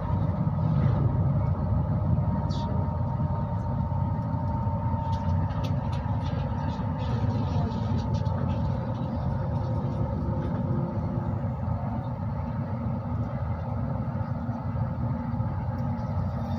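Passenger train running: a steady low rumble of wheels on the rails, with faint steady tones above it.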